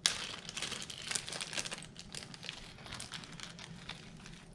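Crinkly packaging being handled and unwrapped: a dense crackling rustle, busiest over the first couple of seconds, then thinning out.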